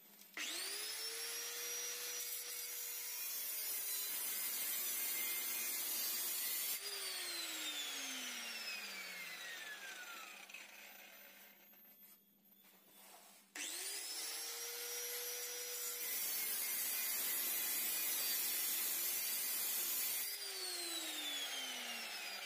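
Electric angle grinder run twice against a steel exhaust pipe: each time it spins up with a rising whine, grinds with a harsh rasping noise for about six or seven seconds, then is switched off and winds down in a long falling whine.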